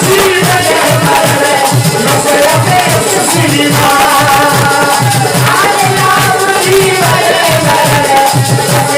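Accompaniment to an Indian devotional folk song: a quick hand-drum beat and a shaken rattle under a sliding melody.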